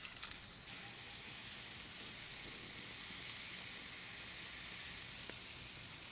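Slightly frozen ground-beef burger patties sizzling on a hot flat-top griddle: a steady hiss that gets louder under a second in and then holds.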